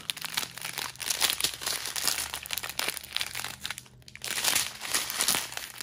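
Strip of small plastic bags of diamond-painting drills crinkling as it is handled, with a brief lull about four seconds in.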